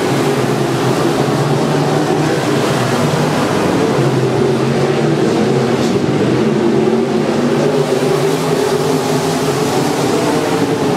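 Dirt-track modified race car's V8 engine running hard at speed around the oval, loud and steady.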